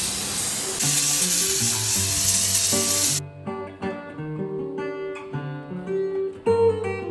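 Degreaser spray hissing steadily onto an engine, cutting off suddenly about three seconds in. Acoustic guitar music comes in underneath and carries on alone after the hiss stops.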